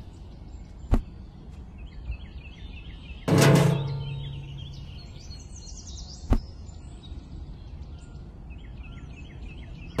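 Birds chirping faintly in the background, with two sharp clicks about a second in and again about six seconds in as small plastic parts are set down, and one loud low boom with a short ring about three seconds in.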